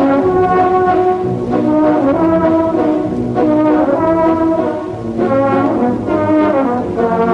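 Brass band music playing a tune of held notes that change every half second or so.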